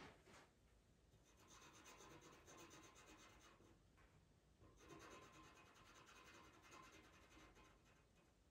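Pastel pencil scratching on Pastelmat paper in quick short strokes, faint. There are two runs of strokes, each a couple of seconds long, with a short pause between them.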